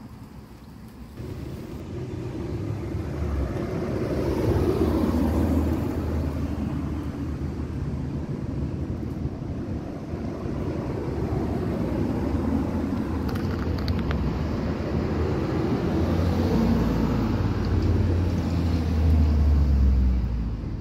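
Steady low engine rumble that comes in about a second in, swells a few seconds later and again near the end.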